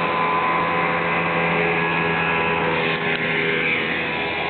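Speedboat's Mercury 2.5-litre V6 running at speed with a steady engine note over the hiss of the hull on the water.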